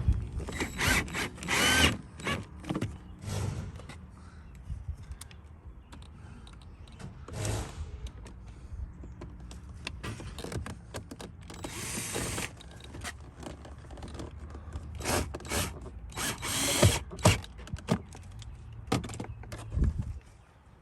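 A power driver with a T15 Torx bit driving small screws into a van door panel, in a few short runs, between clicks and knocks of the tool and panel being handled.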